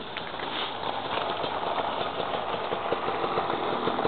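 Dirt bike engine running with a fast, even beat, getting gradually louder.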